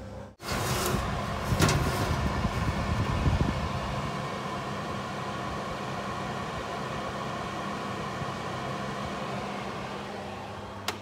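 Electric wall oven running, its fan giving a steady whir with a faint hum, and two light knocks in the first few seconds.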